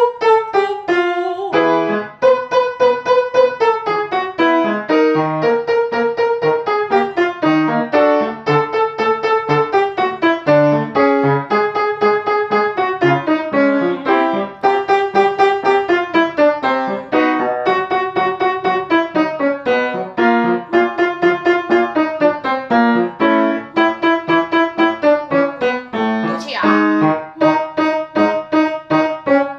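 Piano accompanying a vocal warm-up exercise: quick repeated chords under held, sung scale patterns that move in steps, each phrase starting a little lower than the last as the exercise works down through the range.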